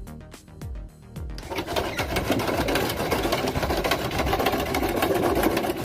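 Background music with a steady thumping beat; about a second and a half in, a loud, continuous machine noise joins it and runs on.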